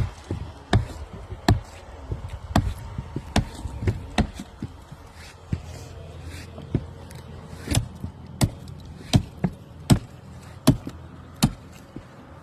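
Repeated sharp knocks of brick chimney demolition, masonry being broken up. About a dozen and a half impacts, irregular at first and then coming steadily about one every three-quarters of a second in the second half.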